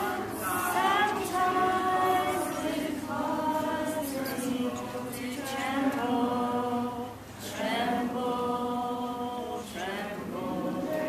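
A group of voices singing a hymn verse together in long held notes, with a short breath between phrases about seven seconds in.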